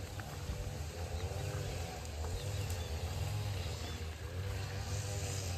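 A run of repeated rising-and-falling animal calls, each a short arched call, coming about once or twice a second over a steady low rumble.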